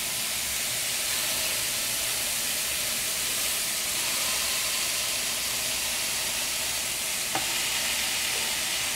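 Raw ground-beef smashburger patties sizzling steadily on the hot griddle plate of a Ninja Foodi Smart XL Pro Grill and Griddle. One patty is being pressed flat with a silicone spatula.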